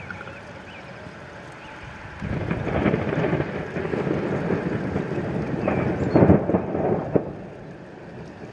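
Thunder from a lightning strike: a rumble breaks in suddenly about two seconds in and rolls on for about five seconds. The loudest crashes and a sharp crack come near the end, then it fades away.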